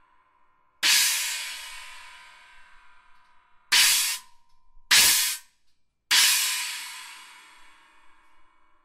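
Very thin 13-inch Wuhan China cymbal struck four times with a wooden drumstick: the first and last crashes ring out and fade over about two and a half seconds, while the two quick middle crashes are cut off suddenly after about half a second.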